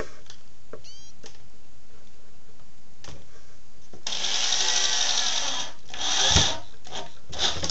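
Ryobi corded electric drill running with its bit going into a plastic storage-bin rail: one run of about a second and a half a few seconds in, then two short bursts. The operator is going easy because the rail is plastic.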